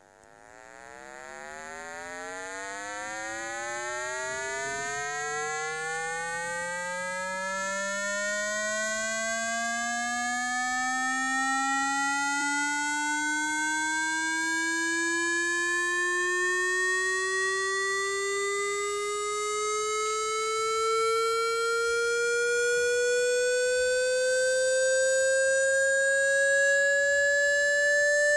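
Synthesized speaker water-ejection tone: a buzzy electronic tone that fades in over the first few seconds, then climbs slowly and steadily in pitch. It is meant to be played at full volume to shake water out of a phone speaker.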